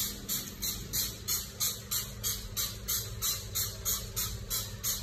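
Cicadas chirping in a steady rhythm of about three hissing pulses a second.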